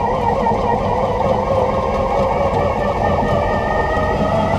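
Electric-converted BMW E46 driving, heard from under the car at the driveshaft: steady road and tyre noise with a faint wavering whine from the electric drivetrain.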